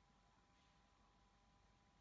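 Near silence: faint steady hiss with a faint, steady high whine.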